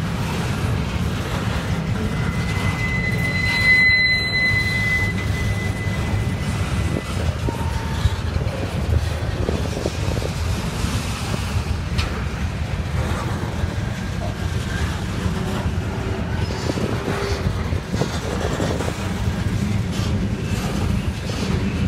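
Freight train's hopper cars rolling past, a steady low rumble of steel wheels on rail. A high squeal rises about three seconds in and fades out by seven seconds, with a few sharp clicks from the passing trucks.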